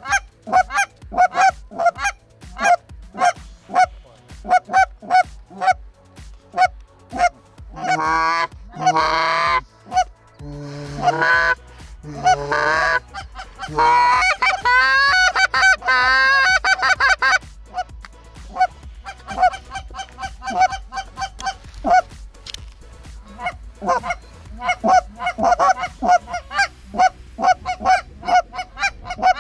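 Canada geese honking in short, evenly repeated calls about two a second, together with a hunter blowing a goose call. From about 8 to 17 seconds in there is a denser, louder run of longer calls with bending pitch.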